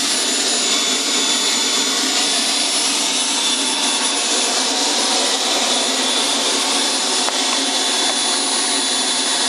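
Small RC model jet turbine running steadily at idle: an even rushing with a steady high-pitched whine.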